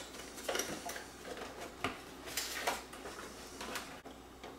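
Hard plastic housing of a Roomba Clean Base being handled and pried at with a screwdriver: a scatter of small clicks and knocks as the panels are worked loose.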